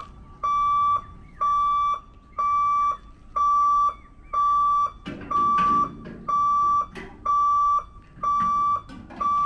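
Level-crossing warning buzzer beeping at one high pitch, about once a second, while the boom barriers are lowered across the road.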